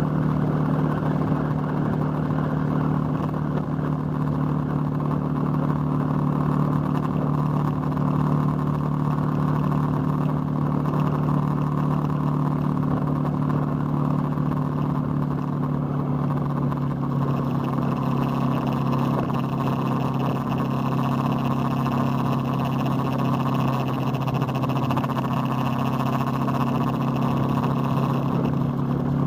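Motorcycle engine running at a steady cruising speed, with wind rushing over the bike-mounted microphone. The engine note holds nearly constant, with little change in revs.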